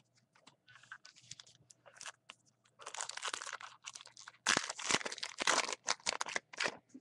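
Trading-card pack wrapper being torn open and crinkled by hand: irregular crackling and rustling that grows loud about three seconds in and runs in quick bursts until near the end.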